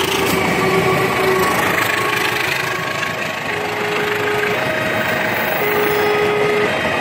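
Passenger train carriages rolling past close by, a steady loud rumble and rattle of wheels on rail, with the level-crossing warning alarm sounding over it in two alternating tones, about one tone a second.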